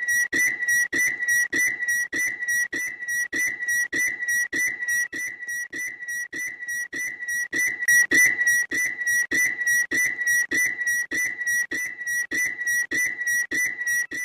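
A bird's loud, high, whistle-like call repeated in short, evenly spaced notes, about three a second, without a break.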